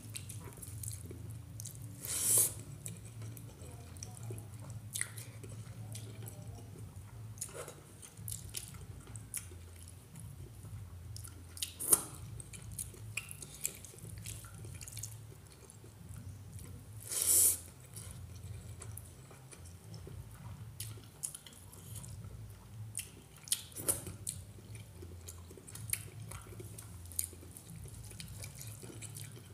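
Wet, sticky eating sounds of bare fingers mixing and squeezing cooked rice with fish curry on a steel plate, with many small moist clicks and chewing. A few brief, louder hissy sounds stand out along the way.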